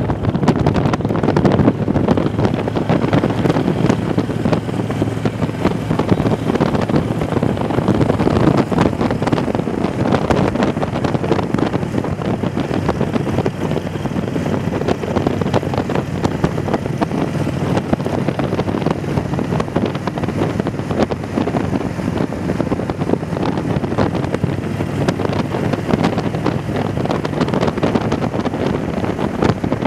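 Wind buffeting the microphone on a moving motorcycle, steady throughout, with the engine's low hum running underneath at road speed.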